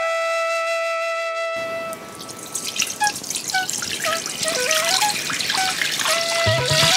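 Water pouring in a stream into a stainless steel pot, a steady splashing rush that starts about one and a half seconds in, under flute music.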